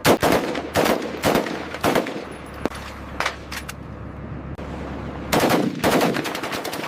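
M240 machine gun firing: a few spaced shots in the first two seconds, some lighter cracks, then a rapid burst about five and a half seconds in.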